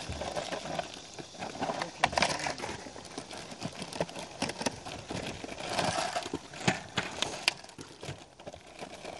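Handling noise on a boat deck: irregular clicks, taps and rustling, with a sharper knock about two seconds in.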